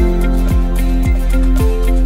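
Background music with a steady beat of about two drum strokes a second.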